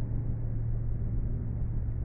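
Steady low rumble with a constant low hum underneath.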